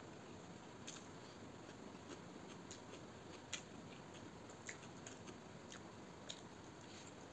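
A person eating rice and chicken curry by hand: faint chewing and mouth sounds, with scattered small irregular clicks over a steady hiss, the sharpest click about three and a half seconds in.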